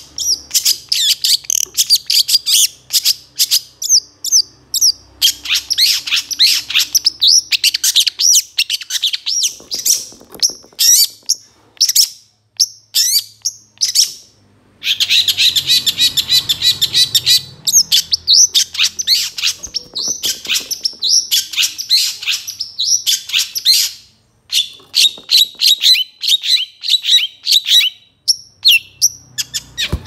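Long-tailed shrike (cendet) singing a rapid, varied chattering song of sharp, quickly repeated notes, with two brief pauses, one about halfway through and one about three-quarters through.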